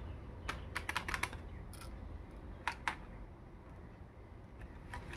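Light clicks of hard plastic toy pieces knocking against each other and the plastic basket as it is handled: a quick run of clicks about half a second to a second and a half in, then two more near three seconds, over a low steady rumble.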